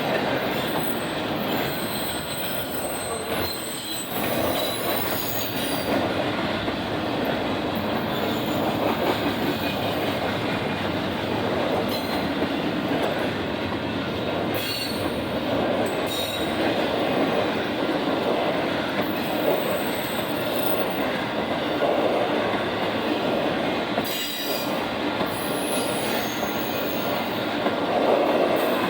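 Intermodal freight train cars rolling past: a steady rumble of steel wheels on rail, with brief faint high-pitched wheel squeals now and then.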